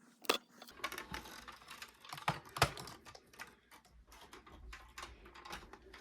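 Faint, irregular clicks and taps, as of objects being handled, over a low rumble.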